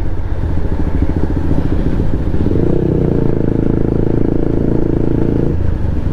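Motorcycle engine running steadily while riding at about 50 km/h, heard from on the bike itself, with road and wind noise. The engine note grows a little stronger about two and a half seconds in and eases briefly near the end.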